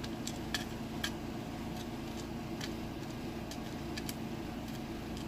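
Steel tweezers tapping and picking at small brass lock pins in a plastic pin tray: a few light clicks at irregular intervals over a steady low hum.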